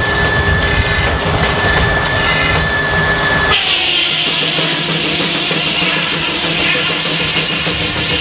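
Machinery running with a steady noise and a constant high whine, which cuts off abruptly about three and a half seconds in and gives way to rock music with drums.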